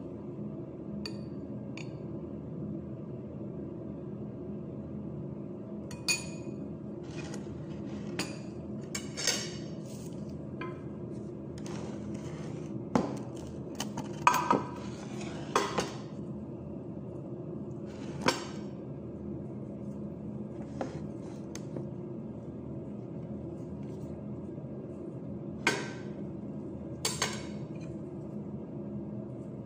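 Kitchen handling noises: scattered clinks and knocks of a glass bowl and dishes on a counter as vegetables are handled, over a steady low hum.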